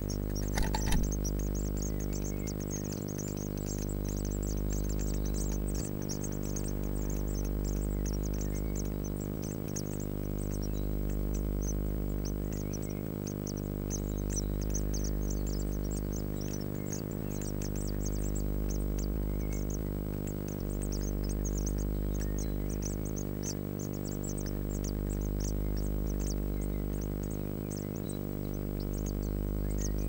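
Slow ambient synthesizer music, a held drone that swells about every three and a half seconds, under a constant scatter of thin, high, rapid chirps from blue tit nestlings begging.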